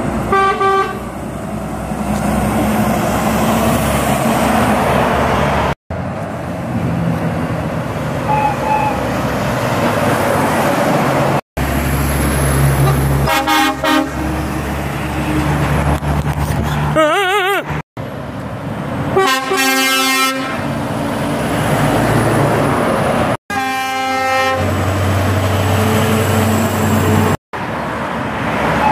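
Lorries and cars passing on a road, with low truck engine drone and several short truck horn toots. The sound drops out suddenly for a moment several times where clips are joined.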